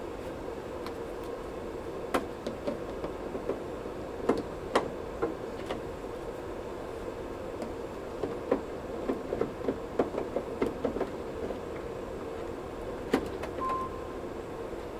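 Scattered plastic clicks and rattles of an ink cartridge being handled in a large-format HP inkjet poster printer, over the printer's steady hum. The clicks come thickest about halfway through, and a short beep sounds near the end.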